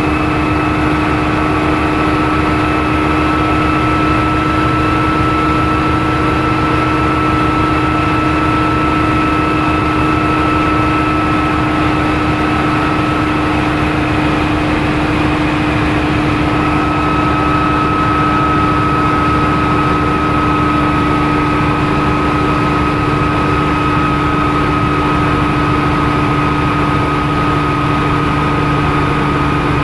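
Bell OH-13 Sioux helicopter in flight, heard from inside the cockpit: its piston engine and rotor run steadily with a constant hum and rapid low pulsing. A higher whine over it fades out for a few seconds about halfway through, then comes back.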